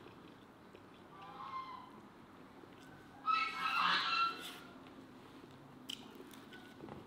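Farmyard poultry calling in the background: a short call about a second in, then a louder call lasting about a second.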